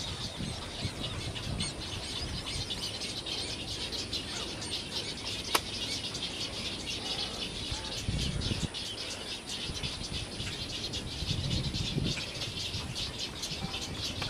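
Dense, continuous chatter of high, rapid bird chirps and calls from a nesting bird colony. Low rumbles come in about eight and twelve seconds in, and there is a single sharp click near the middle.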